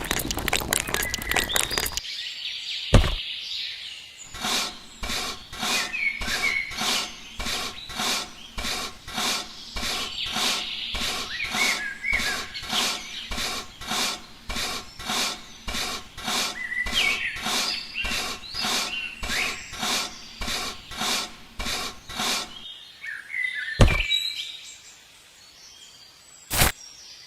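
Regular tapping or knocking, about two strokes a second, with birds chirping behind it; a rapid clatter at the start and a few single thumps near the end.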